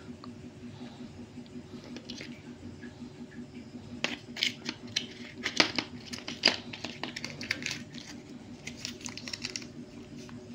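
Clear plastic bag crinkling and small parts clicking as a hand rummages in a plastic parts organizer and pulls out a bagged needle bearing, in a busy run of rustles and clicks from about four seconds in until near the end. A steady low hum sits underneath.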